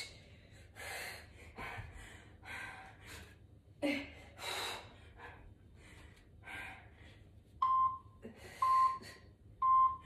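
Heavy, gasping breaths from a person doing sit-ups, one every second or so. Near the end an interval timer gives three short beeps about a second apart, counting down to the end of the work interval.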